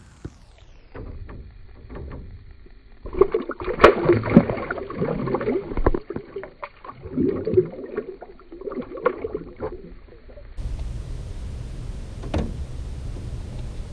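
Water splashing as a yellow bass is let go by hand at the lake surface: irregular splashes and slaps starting about three seconds in and going on for several seconds. Near the end there is a steady low rumble with one click.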